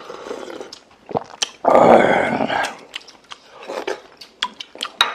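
People eating at the table: biting and chewing, with scattered sharp clicks of cutlery on dishes. There is one louder, noisy burst lasting about a second, near the middle.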